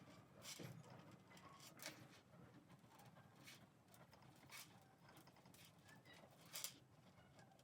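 Near silence: quiet room tone with about five faint, short clicks or taps scattered through it.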